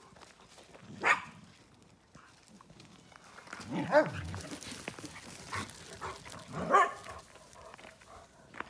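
A dog barking three times, a few seconds apart, the second and third barks the loudest.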